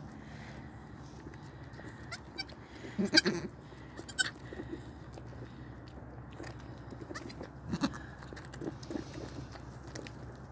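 Newborn goat kid bleating in a few short calls, the loudest about three seconds in, with faint rustling of pine straw between them.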